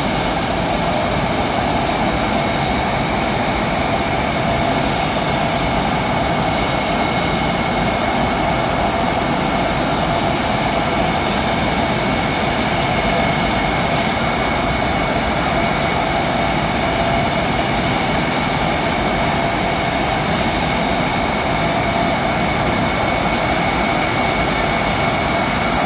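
Turbofan engines of Black Eagles KAI T-50B jets running at low ground power while one taxis: a steady high-pitched whine over a low rumble.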